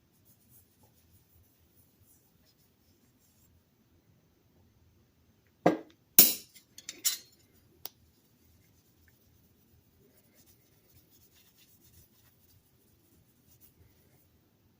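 Faint handling and rubbing, then a few sharp clacks about six seconds in, two loud and two lighter: steel hand plane parts being handled and set down on the workbench.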